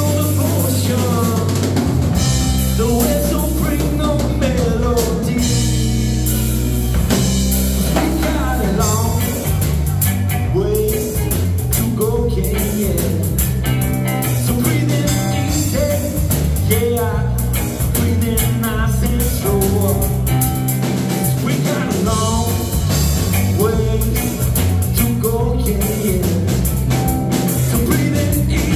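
Rock band playing live: electric guitar, electric bass and drum kit keeping a steady beat, with bending melodic lines over the top.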